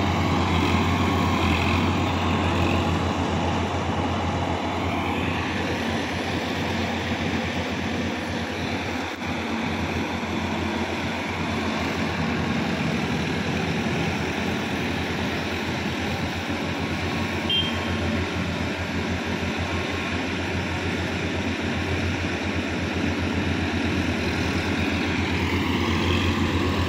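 Tractor diesel engines (a Sonalika DI 50 RX and a TAFE 5450 DI) running steadily under load while working a wet paddy field, a constant low engine drone.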